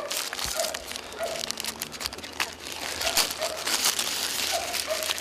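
A small clear plastic bag crinkling as gloved hands squeeze and turn it over, a dense run of crackles.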